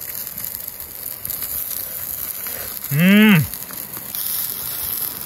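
A man's short closed-mouth "mm!" about three seconds in, its pitch rising then falling, the sound of someone tasting food he likes. It sits over a steady hiss.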